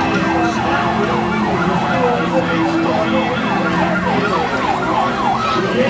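Emergency-vehicle siren in a fast yelp, its pitch sweeping up and down several times a second, over a steady low drone.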